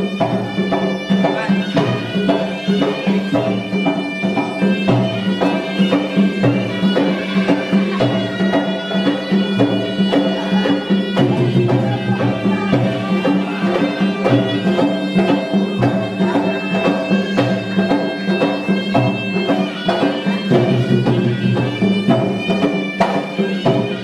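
Traditional Malay music of the kind played for silat: a reedy, nasal pipe plays a continuous melody over a steady drum beat.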